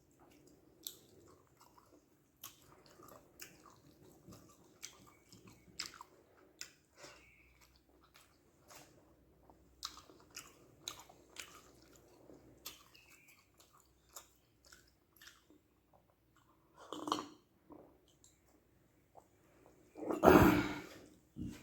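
Close-miked wet chewing and small mouth clicks of a person eating white rice with egg gravy, scattered irregular smacks over the whole stretch. Near the end comes a louder noise lasting about a second, the loudest in the stretch.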